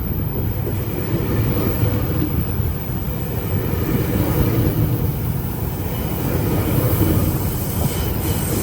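GO Transit diesel commuter train departing, a steady low rumble from the locomotive and moving train.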